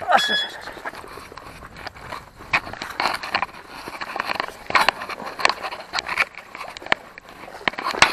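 Footsteps and rustling of clothing and gear as a person walks through dry grass and litter on a roadside bank, uneven steps and brushing sounds throughout, with a brief high chirp right at the start.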